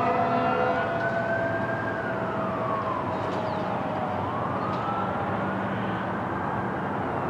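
Fire engine siren wailing, rising and falling slowly through about one and a half cycles over traffic noise. A steady horn blast cuts off under a second in.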